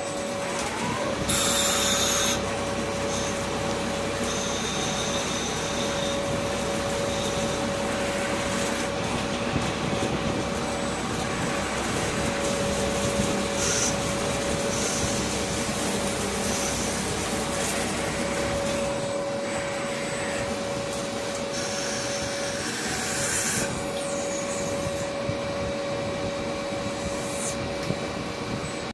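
CNC lathe running and turning polyacetal pulley stock: a steady whine over continuous machine noise, with two short louder hissy passages, one about a second and a half in and one near the end.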